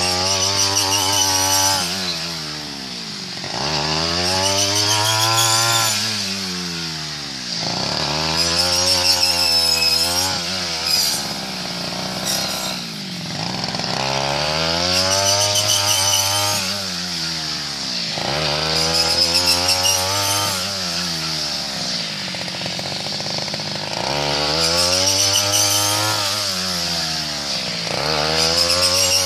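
Backpack rice harvester's small engine, revved up and eased back over and over as it cuts rice stalks, its pitch rising and falling about every three to four seconds.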